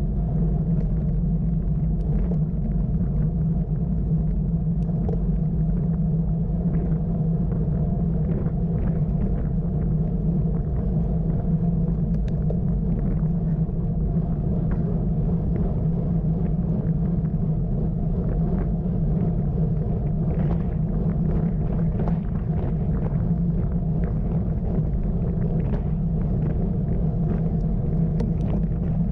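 Steady low rumble of road and wind noise picked up by a camera riding on a bicycle, with scattered faint ticks.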